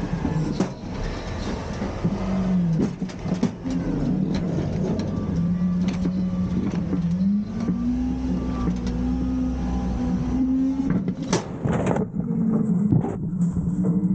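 Garbage truck's diesel engine running, its pitch stepping up about seven seconds in as it revs to drive the lift hydraulics, with repeated knocks and clatter of bins being tipped into the hopper.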